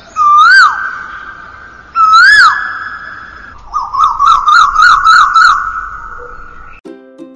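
Intro sound effect of whistling: two short whistles that each swoop up and drop away, then a warbling whistle for about three seconds. Light ukulele music starts near the end.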